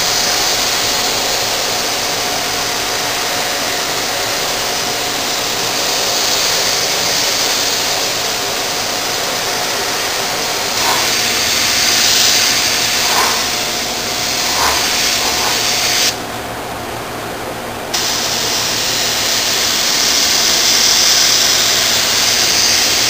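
Compressed air hissing from a small gravity-feed spray gun as paint is sprayed, steady with louder spells and a brief quieter stretch about two-thirds of the way through.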